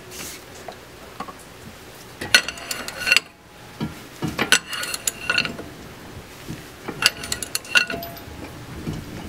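Steel hand tools clinking and clanking against the car's suspension parts in several short bursts, some strikes leaving a brief metallic ring, as a seized part is worked loose.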